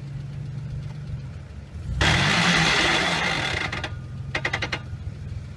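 A 4x4's engine labouring at low revs on a steep climb, revved hard about two seconds in with a loud hissing rush for about a second and a half, then dropping back to a low run. A short quick rattle of clicks follows near the end.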